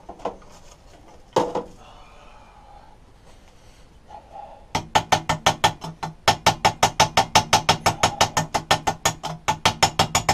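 Hammer tapping rapidly on a welded metal cover, about six light, even blows a second, flattening down fresh MIG spot welds. A single knock comes about a second and a half in, before the run of taps starts.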